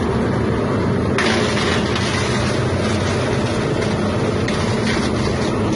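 Expired-bread plastic-separating machine running with a steady motor drone. About a second in, a louder hiss joins over it.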